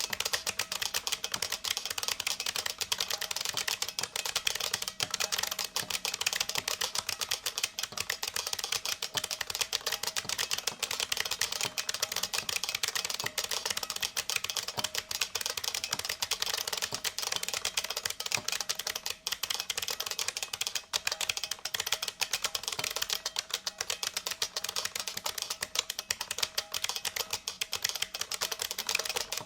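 IBM Model F XT keyboard's capacitive buckling-spring switches clicking under fast, continuous typing: a dense, unbroken run of sharp key clicks.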